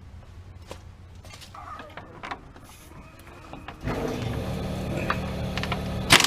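Impact wrench (impact gun) on a suspension bolt: a few metal clicks as the socket is fitted, the gun spinning up about four seconds in, then hammering loudly near the end as it works the bolt loose.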